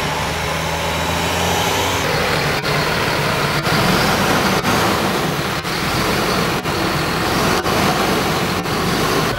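Tandem-axle diesel dump truck driving slowly over a muddy dirt track, its engine running steadily with the rumble of the truck; the sound gets fuller about two seconds in.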